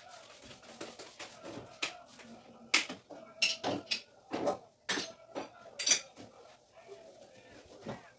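Dishes and utensils clinking and knocking: a string of sharp, irregular clinks, loudest between about three and six seconds in.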